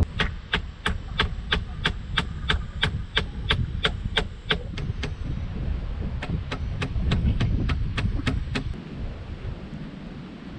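A hammer driving a nail into the joint of a wooden pole frame: quick, evenly spaced strikes, about three a second, in two runs with a short pause between them.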